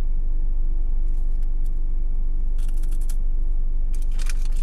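Steady low hum of an idling car, heard inside the cabin. Crisp crunching about two and a half seconds in and again near the end, as a hazelnut-filled wafer sandwich is bitten and chewed.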